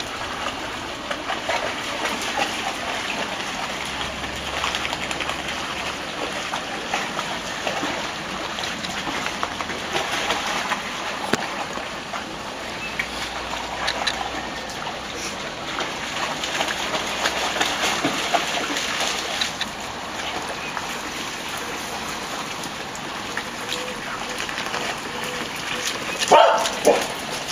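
Water splashing and sloshing as dogs wade through shallow flood-irrigation water, over a steady trickle of running water. Near the end a dog gives a couple of short barks.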